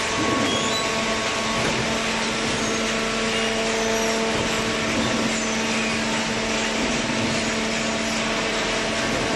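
HSM hydraulic paper baler running: a steady machine hum with a few held tones over a continuous mechanical noise.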